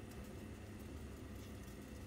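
Pot of water with chicken bones boiling on a gas stove: a faint, steady bubbling hiss.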